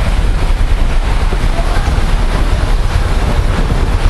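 Loud, steady rumbling noise with a constant hiss over it, with no clear pitch or rhythm.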